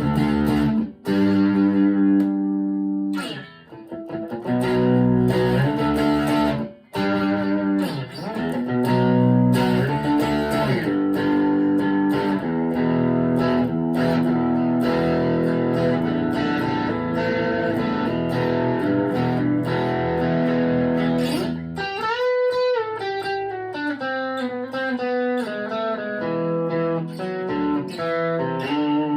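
Chapman ML3 Pro Thinline electric guitar played through an amp: chords with several short stops in the first seven seconds, then held chords, and about 22 s in a single-note line with string bends.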